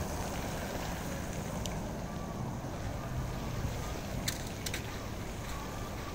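Steady outdoor background noise, low and even, with a few faint clicks about four and a half seconds in.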